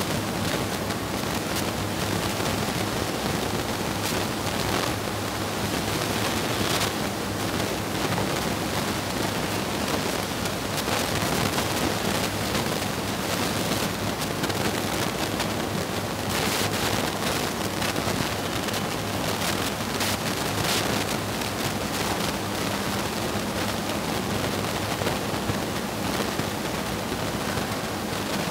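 Steady rushing background noise with a faint low hum. Through it, a few brief scratchy strokes of a marker writing on a whiteboard.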